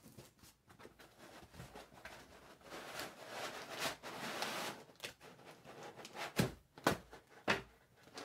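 Cardboard packaging being handled: a cardboard insert scraping and sliding against the box for a couple of seconds, then a few sharp knocks and taps as a foam packing block is pulled out of the box.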